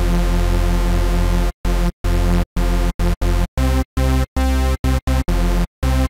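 A hoover rave synth patch in Xfer Serum plays a riff: one long held note, then a run of short, choppy notes. The patch is a triangle sub oscillator under two pairs of detuned sawtooth oscillators, each pair an octave above the one below, which gives it a thick, buzzy tone. It is the basic sound, before white noise, pitch modulation and chorus are added.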